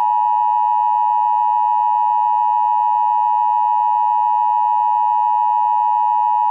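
Emergency alert attention signal: one loud, unbroken electronic tone held at a constant pitch and level.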